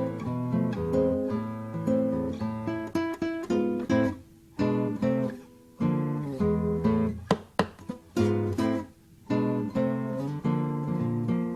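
Acoustic guitar music, plucked and strummed, with a couple of short pauses between phrases.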